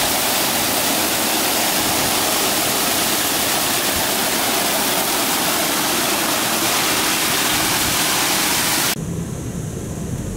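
D&S i5000 touch-free car wash's high-pressure water jets spraying, a steady loud hiss. About nine seconds in it drops abruptly to a quieter low rumble.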